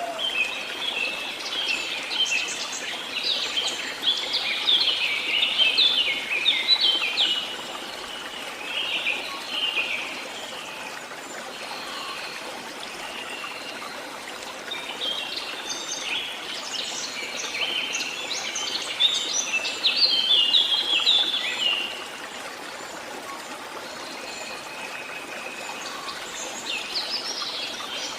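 Songbirds chirping and singing in two long bouts of quick, high notes, over a steady background rush of water like a stream.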